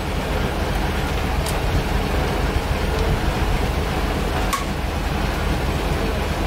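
Wind rushing over the microphone, a steady hiss with a low, gusting rumble beneath it. Two faint clicks of small things being handled, about a second and a half and four and a half seconds in.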